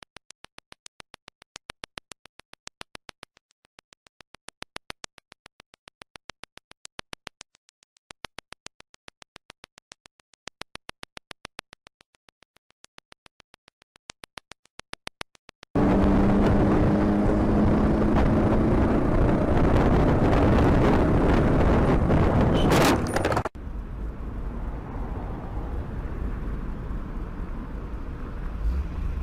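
Fast, regular clicking, about five clicks a second, with near silence between them. The clicking then gives way to louder vehicle road noise with a steady low hum and one sharp knock, and that in turn drops to a quieter steady background noise near the end.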